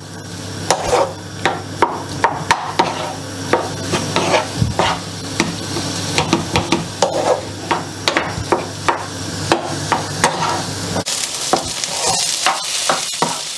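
Wooden spatula mashing and stirring boiled potatoes in a non-stick frying pan with a little hot oil: repeated knocks of the spatula on the pan, about one or two a second, over a faint sizzle. A low steady hum underneath stops about eleven seconds in.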